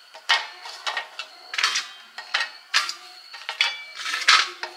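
Crisp fried papri discs being set down one at a time on a steel plate: a series of light clicks and clacks, about seven, irregularly spaced, some with a faint metallic ring.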